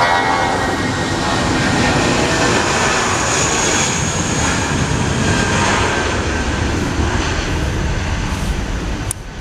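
Jet airliner's engines running loud as it passes: a dense, steady rush with a faint whine that falls in pitch in the first second. The sound dips sharply for a moment just before the end.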